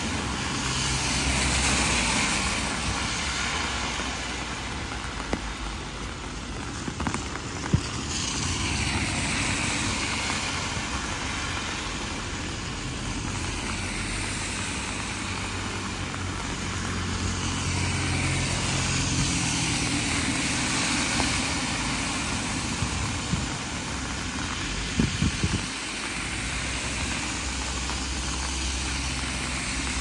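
Heavy rain falling on a city street, with cars driving past on the wet road: the tyre hiss swells and fades three times over a low engine rumble, with a few sharp ticks scattered through.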